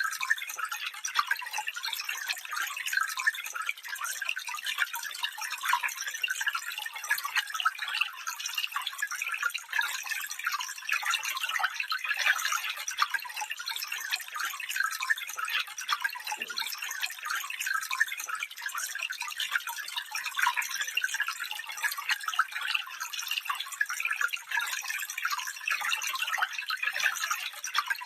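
Small stream trickling and babbling over stones: a steady, bright patter of little splashes with hardly any low rumble.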